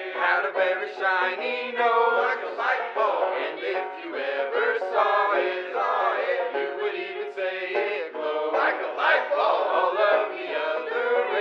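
Several voices singing a Christmas song together.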